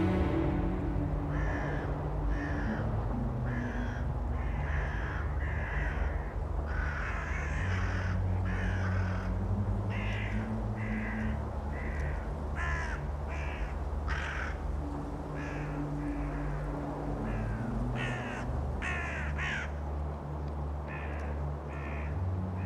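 Crows cawing over and over, many short harsh caws in irregular runs, over a steady low drone.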